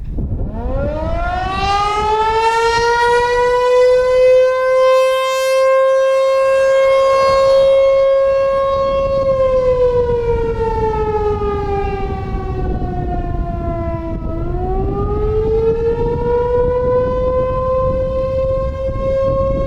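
American Signal T-128 electromechanical outdoor warning siren starting up and sounding the attack signal. Its pitch climbs steeply as it spins up, holds high for several seconds, slides down over about five seconds, then rises again and begins to fall once more near the end.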